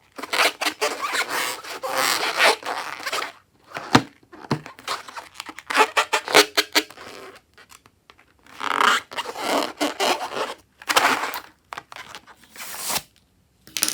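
Slime being squished and stretched by hand, giving wet, crackly squelches in bursts of a second or two with short pauses between, and a few sharp snaps.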